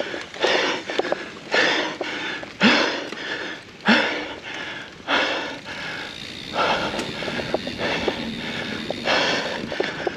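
A mountain biker breathing hard under effort, with a loud exhale roughly every second and small clicks in between.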